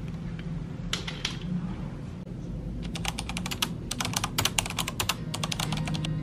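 Computer keyboard typing sound effect: a couple of key clicks about a second in, then a fast run of key clicks from about halfway through until just before the end, over a steady low hum.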